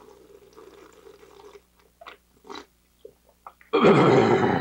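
A man swigging whiskey from a bottle: faint gulping, a few small clicks of the bottle and cap, then about four seconds in a loud, raspy throat noise lasting nearly a second after the drink.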